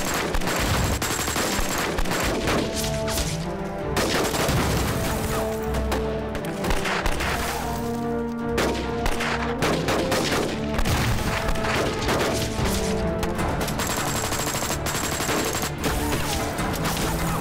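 Sustained heavy gunfire, many shots in rapid succession, as a firefight. Background music plays underneath.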